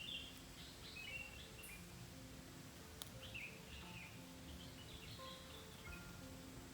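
Forest birds chirping, short sliding calls following one another over a faint steady hiss, with soft low held tones underneath.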